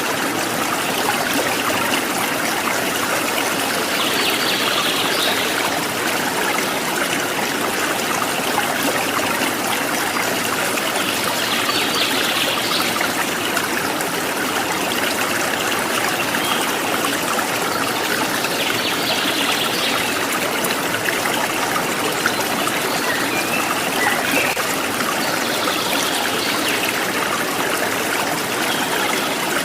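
Stream of running water, trickling and splashing steadily. Short bird calls come through faintly about every seven seconds.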